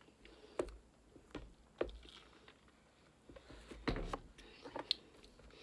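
Soft gulps and swallowing while drinking a thick green smoothie from a bottle, then a louder knock about four seconds in as the bottle and box are handled.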